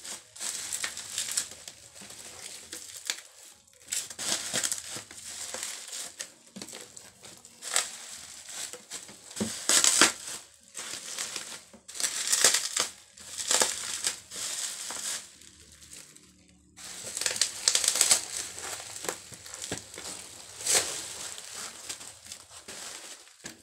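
Bubble wrap and plastic packaging film crinkling and rustling in irregular bursts as they are pulled off and handled.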